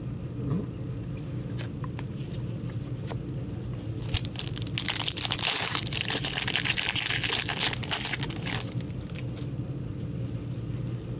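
A 2015-16 Upper Deck Series 2 hockey card pack's wrapper being torn open and crinkled by hand: a dense crackle that starts about four seconds in and lasts about four seconds. A few light clicks of cards being handled come before it, over a steady low hum.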